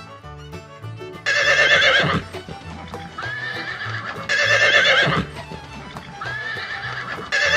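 Horse neighing: three loud, quavering whinnies about three seconds apart.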